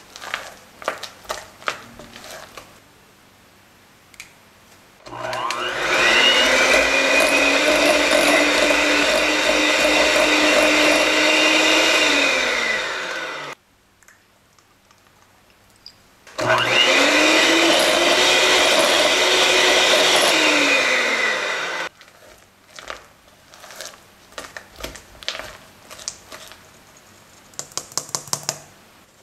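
Electric hand mixer creaming butter in a glass bowl, running twice for several seconds each time, its whine rising as it speeds up and falling as it stops. Before, between and after the runs, a spatula scrapes and taps against the glass bowl, and near the end a quick series of taps comes from a mesh sieve sifting flour.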